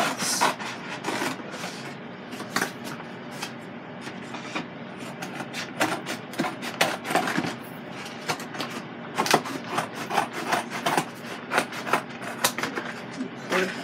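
Cardboard pizza box being handled and folded: irregular scraping, rubbing and sharp clicks of the cardboard.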